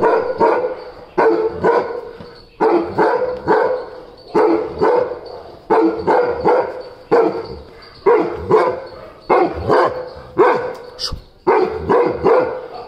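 Weimaraner barking over and over, mostly in quick pairs of barks, a new pair about every second and a half.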